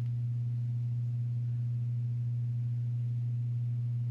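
Steady low electrical hum at a single unchanging pitch, with a fainter tone an octave above it.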